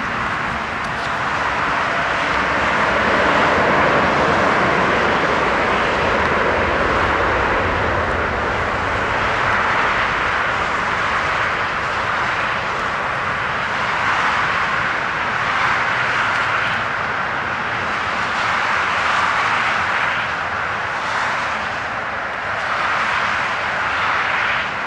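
A Boeing 747's four jet engines at climb power as the airliner climbs away just after takeoff: a steady rushing jet noise that wavers slightly in loudness.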